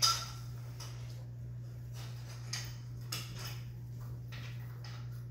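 Light, scattered clicks and taps of Chihuahua puppies' claws on a ceramic tile floor as they trot about, the sharpest one at the very start, over a steady low hum.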